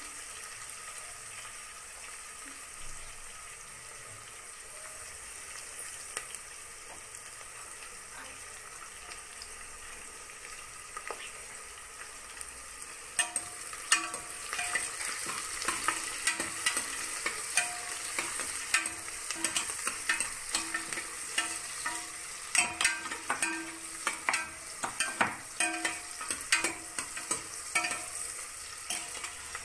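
Onions, green chillies and whole spices sizzling in oil in a metal pressure cooker, a steady hiss. From about 13 seconds in, a steel ladle stirs them, with frequent clinks and scrapes against the pot.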